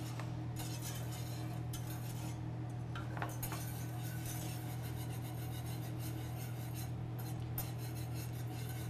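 Wire whisk scraping round a metal saucepan as sauce is stirred toward a simmer, in long rasping stretches with brief pauses, over a steady low hum.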